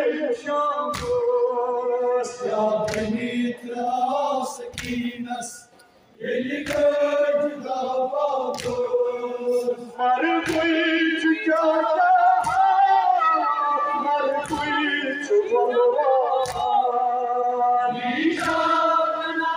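A group of voices chanting a Kashmiri noha (Muharram lament) together, unaccompanied, with a brief pause between lines about six seconds in. A sharp thump lands roughly every two seconds, keeping time with the chant.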